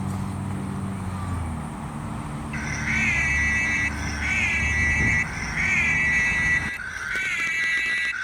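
A vehicle engine running, then from about two and a half seconds in a siren sounding a repeating wail: each cycle swoops up in pitch and then holds, about once a second.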